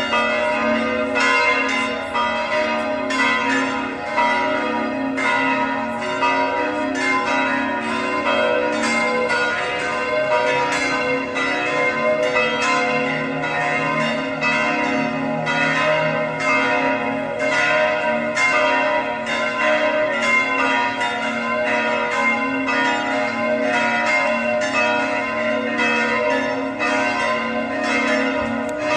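Several large bells ringing together in a continuous peal, with quick, overlapping strikes over a sustained ringing hum.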